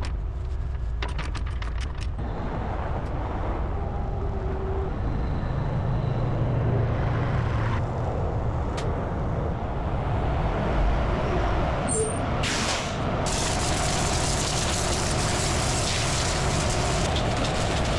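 Quick ratcheting clicks for the first two seconds over the steady low rumble of an idling diesel truck. A short burst of air hiss comes about twelve and a half seconds in, followed by a steady hiss.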